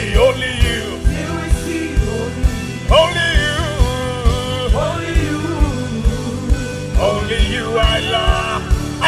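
Live gospel worship song: a man singing a slow melody into a microphone over a band with electric guitar and a steady kick-drum beat about twice a second.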